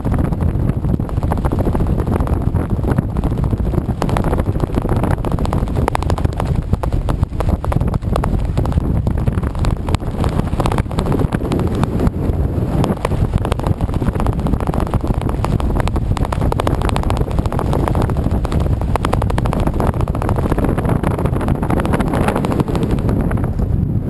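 Wind blasting across the microphone of a camera worn by a skydiver under an open parachute canopy: a loud, steady rushing rumble with a rapid crackle of buffeting.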